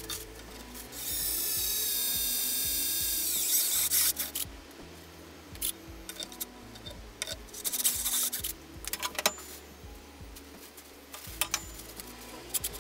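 Cordless drill boring a mounting hole for a binding through a ski. It runs with a steady whine for about two seconds, and the whine drops in pitch as it winds down. Scattered clicks and knocks follow.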